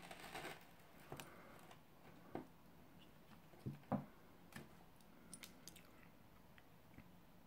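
Faint taps and clicks of a Fazer Dumle Snacks bar being handled on a table, then a couple of sharp cracks about four seconds in as the rice-crisp milk chocolate bar is snapped in half.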